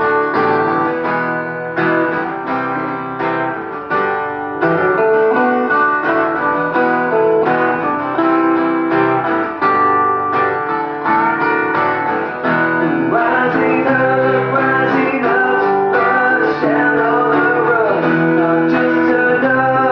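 Acoustic guitar music, strummed in a steady rhythm, with a voice singing over it in the second half.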